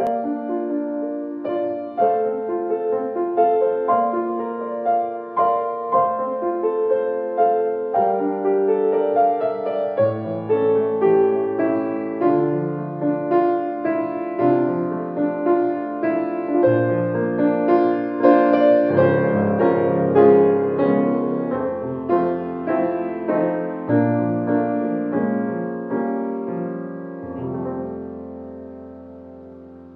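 Solo piano playing an intro piece, one note after another, fading out near the end.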